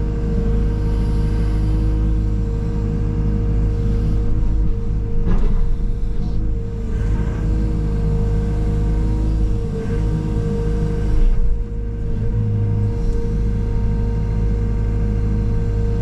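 Engine of a bucket-equipped machine running steadily, a constant drone with a steady tone on top, swelling briefly louder about five and eleven seconds in.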